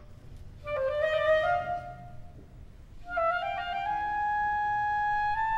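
Intro music: a short melodic phrase about a second in, then a rising line of notes that settles into a long held note near the end.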